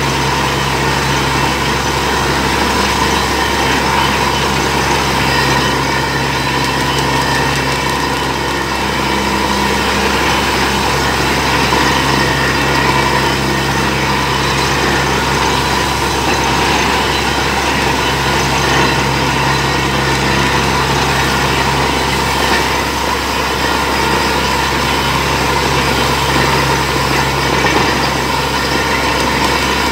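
Borewell drilling rig running steadily under load, its engine and compressor driving the drill while air-lifted water gushes out of the borehole.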